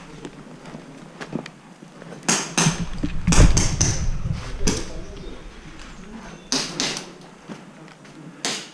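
A series of irregular sharp clacks and knocks, about eight, some in quick pairs, with a heavy low thud around three and a half seconds in.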